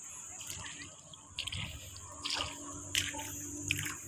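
Wet mud and shallow water squelching and dripping in a handful of short, separate splats, as hands or feet work through soft tidal mud.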